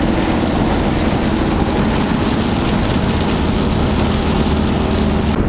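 Cabin noise of a Kia Bongo 3 camper van driving on a wet road in heavy rain and strong wind: a steady loud rush of rain, wind and tyre spray over the low hum of the engine.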